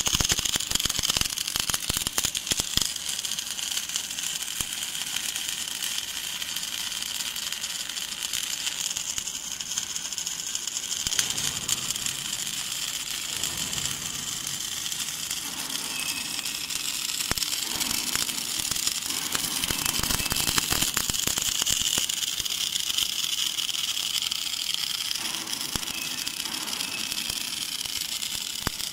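Automatic arc welding along the seam of a steel light pole: a steady crackling hiss from the welding arc, with spatter crackle.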